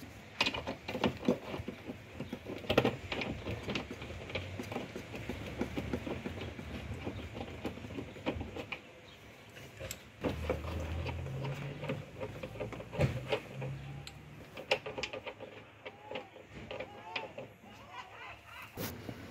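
Hands working at a Cadillac Escalade liftgate's plastic trim and rubber seal: scattered clicks, taps and rustling. A low hum comes in for a few seconds about halfway through.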